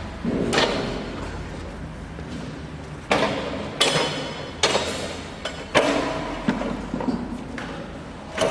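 A series of sharp metallic knocks and clanks, about eight at irregular intervals, several ringing briefly after the hit, over a low steady hum.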